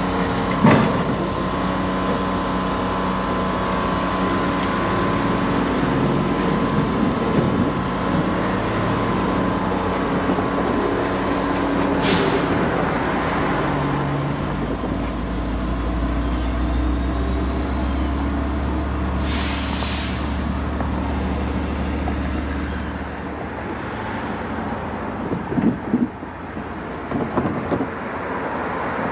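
Diesel engines of a Jordan spreader, powered by a Detroit Diesel, and its pushing locomotive running at idle: a steady mechanical hum with several held tones. Two short hisses of released air come about twelve and twenty seconds in, and a deep low rumble swells up for several seconds between them.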